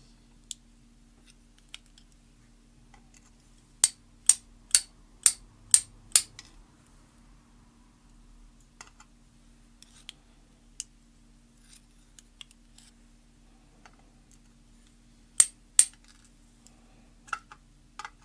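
Sharp small clicks of metal padlock parts and tools being handled on a work surface: a quick run of six clicks about four seconds in, two more near the end, and faint ticks between, over a low steady hum.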